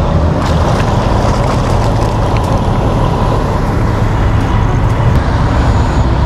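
Steady, loud low rumble of wind buffeting the microphone, mixed with road traffic noise.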